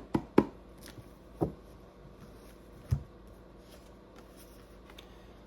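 Tarot cards being handled and laid down: five sharp slaps and taps in the first three seconds.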